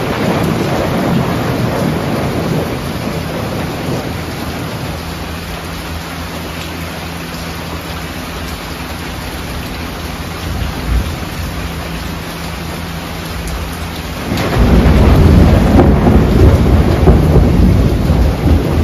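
Steady rain with rolling thunder. The low rumble swells and grows much louder about three-quarters of the way through.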